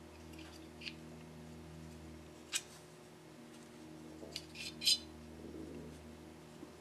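Small metal parts of a miniature steam engine clicking and clinking as they are taken apart by hand: a few light, sharp clicks, the loudest near the end, over a steady low hum.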